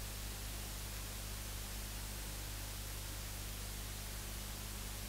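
Steady electrical hiss with a low mains hum and no other sound: the noise floor of the audio feed once the announcer's microphone falls silent.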